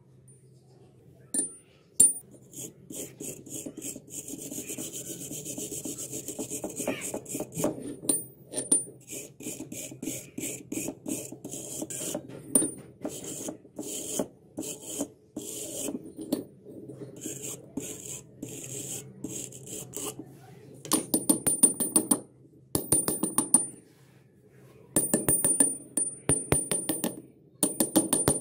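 Hand wire brush scrubbing rust off a pair of needle-nose pliers: scraping back-and-forth strokes of wire bristles on metal. Near the end the strokes come in quick bursts with short pauses between them.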